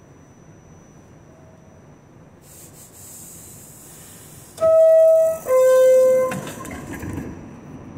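New York City subway R46 car's two-note door chime: a higher tone and then a lower one, each lasting under a second, sounded as the doors are about to close at a station. A steady hiss begins a couple of seconds before the chime and fades soon after it.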